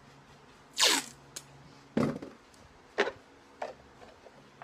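Masking tape being pulled off the roll in four quick rips about a second apart, the first the loudest and the last the weakest.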